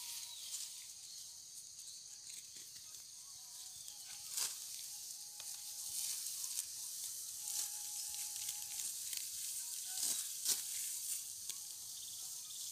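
Hand sickles cutting dry rice stalks: rustling straw with a few sharp snaps, about four seconds in and twice around ten seconds, over a steady high hiss.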